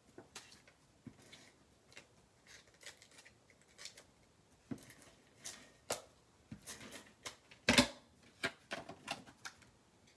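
Hands working with paper: sheets handled and rustled, with irregular small clicks and taps and one louder knock about three-quarters of the way through.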